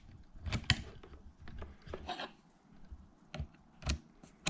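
Hands handling the charging wire and battery terminal hardware: a few light, separate clicks and knocks with soft rubbing between them.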